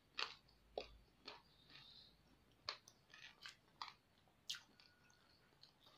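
Mouth chewing crispy deep-fried pork knuckle (crispy pata): soft, scattered crunches and clicks, about a dozen spread unevenly, each brief.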